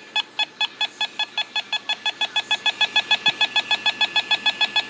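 Handheld microwave (RF) meter beeping its detection alarm in a fast run of short electronic beeps, speeding up from about five to about eight a second as the reading climbs. The owner takes the signal for a microwave weapon attack.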